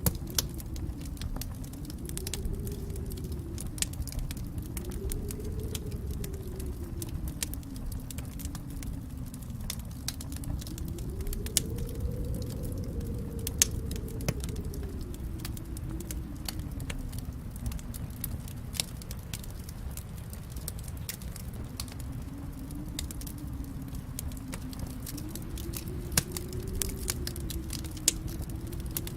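Wood fire crackling in a fireplace: scattered sharp pops, a few of them louder, over a steady low rumble of the flames.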